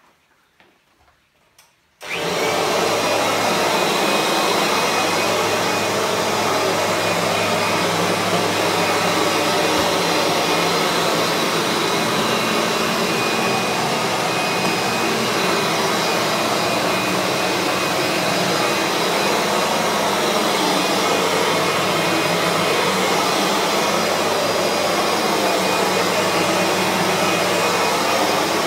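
Kirby G3 upright vacuum switched on about two seconds in, then running steadily with a motor whine while its buffing head polishes a waxed laminate floor. A few faint clicks come before it starts.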